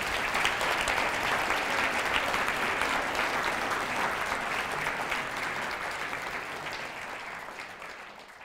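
Audience applauding steadily, the clapping fading away gradually towards the end.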